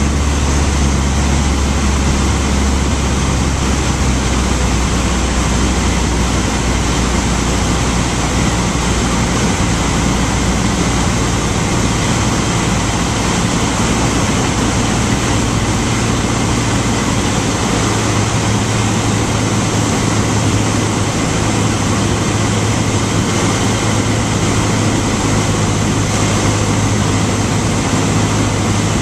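Cessna 152 cabin noise in flight: the four-cylinder Lycoming O-235 engine and propeller drone steadily under a wash of wind noise. The low engine note shifts pitch about halfway through.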